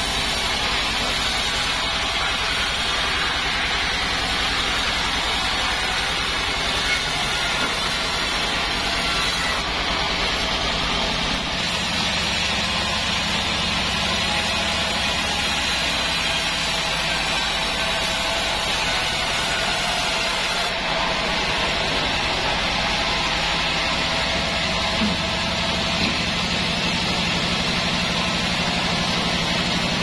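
Band sawmill running and sawing lengthwise through a wadang log, a steady mechanical noise of the blade and drive with the wood being cut.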